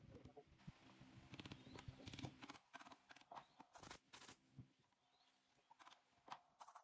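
Faint sharp clicks and knocks of a pneumatic nail gun firing into wood, mixed with the wood being handled, with the strongest shots about four seconds in.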